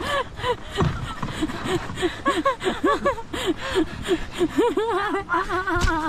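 A woman laughing breathlessly in quick gasping ha-ha's, about three or four a second, ending in a longer wavering laugh near the end.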